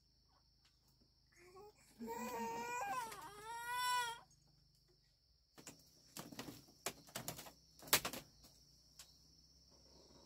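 A child crying for about two seconds, a wavering wail, followed by barefoot footsteps and knocks on a bamboo slat floor, the sharpest about eight seconds in. A steady high insect drone runs underneath.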